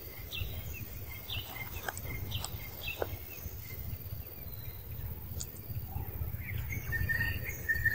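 Outdoor ambience: scattered short high chirps and calls over a steady low rumble, with a longer wavering high call near the end.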